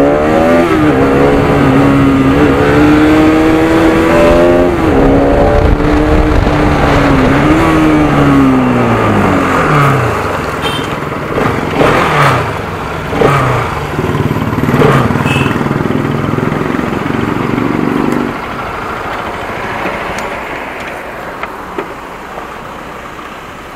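Bajaj Pulsar RS200's single-cylinder engine running under way, its pitch rising and falling as the bike slows, then settling to a low steady run as it rolls over gravel, with a few clicks and knocks. About eighteen seconds in it drops to a quieter idle that fades toward the end.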